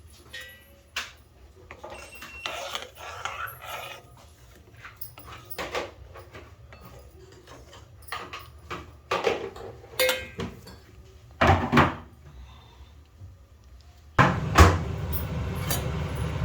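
Kitchen utensils being handled: scattered clinks and knocks of dishes, spoons and pots. Near the end a steady rushing noise starts suddenly and keeps going.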